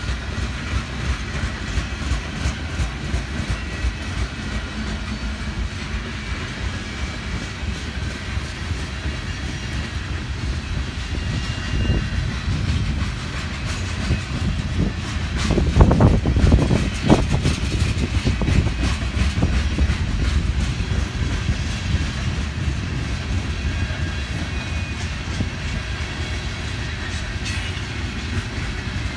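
Freight train of open-top hopper and gondola cars rolling past, a steady rumble with the wheels clicking over the rail joints, and a louder clatter about halfway through.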